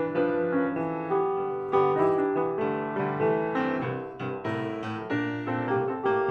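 Piano music: a piano piece with notes struck in a steady, unhurried succession and left to ring.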